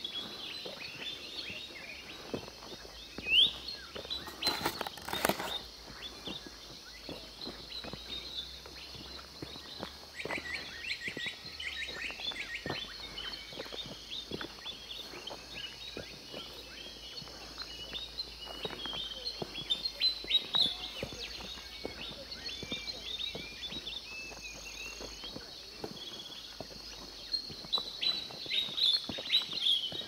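Early-morning chorus of small birds chirping and calling over a steady high hiss. The chirps grow busier from about ten seconds in and again near the end. A brief loud noise burst comes about four seconds in.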